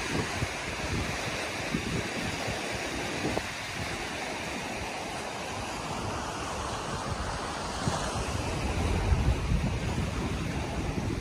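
Surf washing on a rocky shoreline, with wind buffeting the microphone; the low wind rumble grows stronger near the end.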